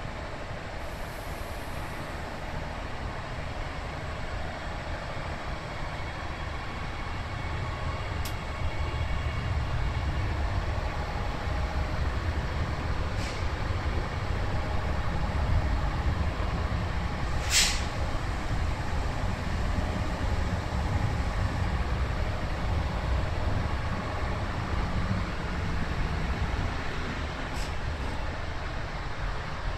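Adelaide Metro 4000-class electric multiple-unit train pulling out and running past along the platform. A steady low rumble of motors and wheels grows louder as the cars go by, with a few brief high-pitched bursts, the loudest about halfway through.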